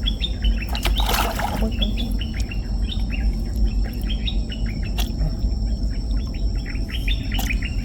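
A bird chirping rapidly and repeatedly, about three or four short notes a second, over the steady high drone of insects. A constant low rumble runs underneath, and a brief rush of noise comes about a second in.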